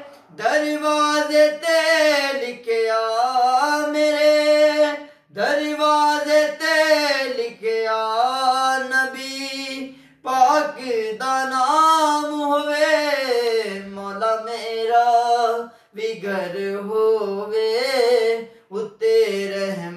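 A man singing a naat unaccompanied, one voice in long, ornamented phrases with short pauses for breath about every five seconds.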